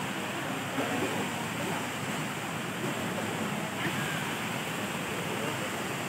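Steady rushing of a waterfall cascading down over rock slabs, with faint voices of people in the background.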